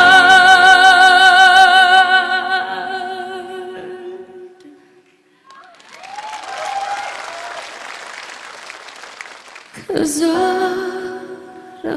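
A singer holds a long, wavering note with vibrato over soft backing, fading out after about four seconds. The audience then applauds for several seconds. Singing starts again near the end.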